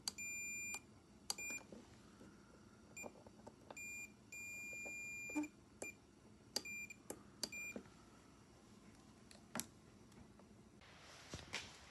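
Electronic beeper sounding a steady high tone in irregular beeps, some brief blips and some held for about a second, with small clicks in between.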